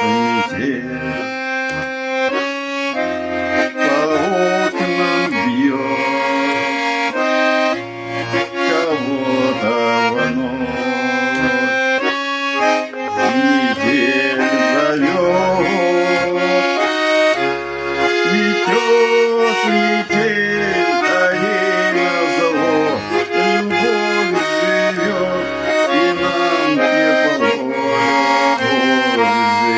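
Tula garmon, a Russian button accordion, playing an instrumental folk tune: a running melody over rhythmic bass and chord accompaniment.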